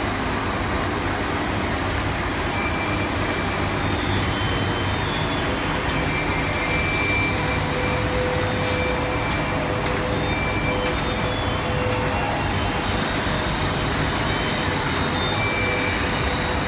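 Side sealer and heat shrink tunnel of a film-wrapping line running steadily with the conveyor, a constant machine noise with faint whining tones that come and go.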